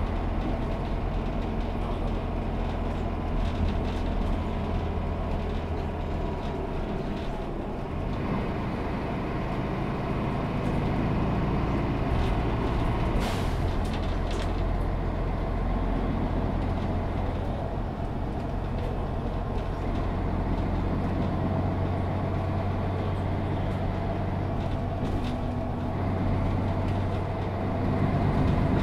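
Setra S 415 NF city bus heard from inside the passenger cabin, its diesel engine running with a steady low drone. About thirteen seconds in comes a short hiss of compressed air.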